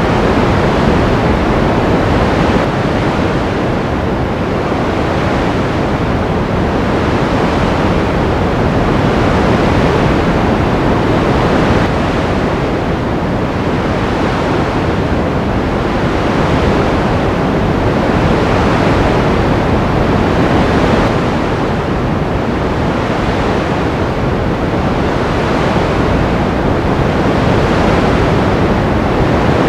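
Ocean surf: a continuous wash of waves that swells and eases every few seconds.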